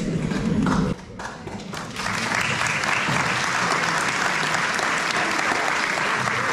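Indoor audience applauding: a second of low-pitched noise, a short lull, then steady clapping from about two seconds in.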